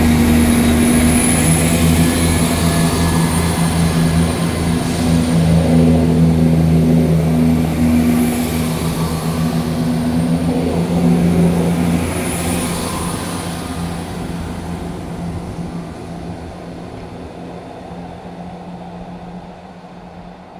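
Chiltern Railways diesel multiple unit pulling away, its underfloor diesel engines running with a steady low engine note and rolling wheel noise. The sound fades gradually from about twelve seconds in as the train draws away.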